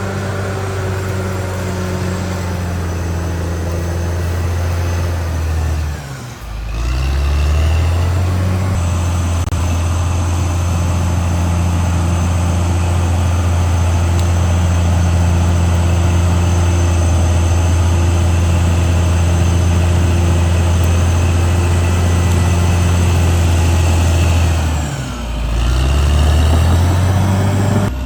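CAT D6R XL bulldozer's diesel engine running hard at steady revs. Twice, about six seconds in and again near the end, the engine drops in pitch and loudness and then picks back up.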